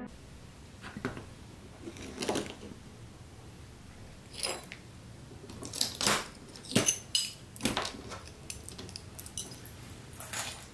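Small pieces of cut sheet glass clinking and tapping as they are picked up, handled and set down on a cutting mat. The light clinks are scattered at first and come more often in the second half.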